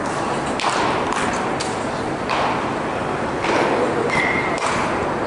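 Baseball bats hitting pitched balls in indoor batting cages: a string of about five sharp cracks and thuds that echo around a large hall, with a brief high ring about four seconds in.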